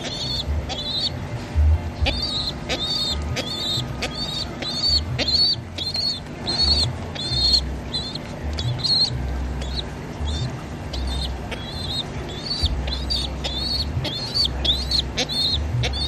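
Young pigeon squabs peeping: short, high squeaks about two a second while being hand-fed, the begging calls of hungry chicks. Low thumps and rumble from handling run underneath.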